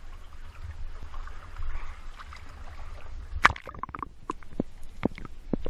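Water sloshing around a camera held at the surface, with a low rumble. About three and a half seconds in, the camera plunges under with a sharp splash. After that, scattered sharp clicks and pops are heard underwater.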